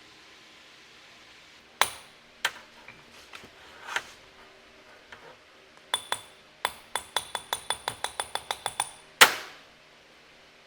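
Hammer striking metal: a few separate knocks, then a quick run of light ringing taps, about six a second, ending in one heavier blow.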